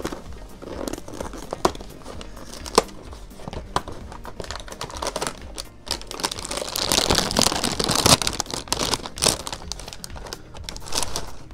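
Small plastic snack pouch crinkling and tearing as it is opened and handled, loudest from about six to nine and a half seconds in.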